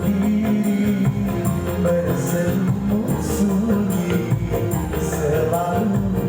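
Dangdut band music playing loud and steady without singing: a low bass line and a wavering melody, with tambourine accents about once a second, played over a sound system.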